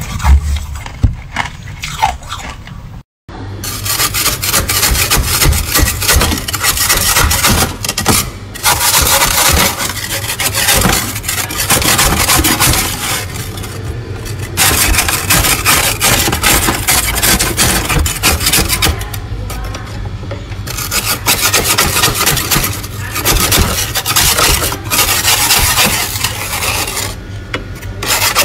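Plastic scraper scraping thick frost off the inside walls of a freezer: loud, continuous rasping broken by a few short pauses. Before it, for the first three seconds, a metal spoon works through loose frost in a bowl, more quietly, and then the sound cuts out suddenly for a moment.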